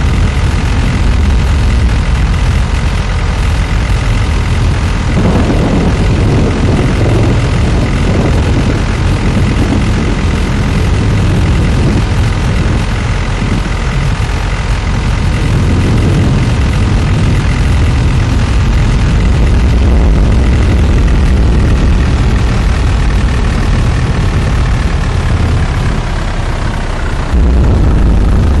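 Loud, steady low roar of tornado wind around the TIV 2 armoured intercept vehicle, with its engine running underneath. The roar jumps louder near the end.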